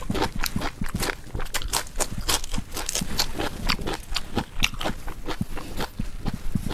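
A person chewing food close to the microphone: a fast, irregular run of crunches and mouth clicks.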